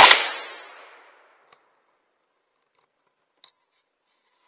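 A single gunshot from a hunting gun, loud and sharp, its echo dying away over about a second. A few faint clicks follow near the end.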